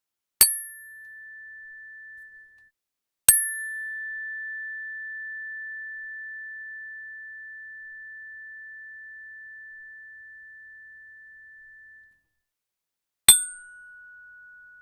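Metal tuning fork struck three times, each strike a sharp click followed by a single clear, high ringing tone. The first dies away after about two seconds, the second rings on for about nine seconds, and the third, near the end, sounds a slightly lower note.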